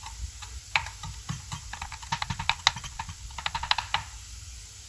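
Kitchen knife finely chopping fresh coriander on a wooden cutting board: sharp quick taps, scattered at first, then in fast runs about two and three and a half seconds in.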